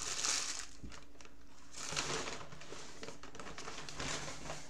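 Paper food wrapper crinkling and rustling as it is handled, in bursts: loudest at the start, again about two seconds in and near the end.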